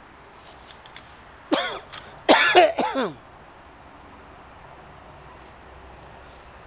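A person coughing: a quick run of several harsh coughs, each falling in pitch, starting about a second and a half in and over within two seconds.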